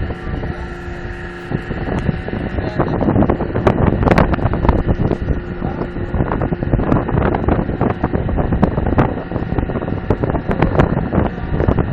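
Ship's anchor windlass and anchor chain running during an anchor test: a steady machinery hum, joined about three seconds in by louder, continuous rattling and clanking of the chain, with wind buffeting the microphone.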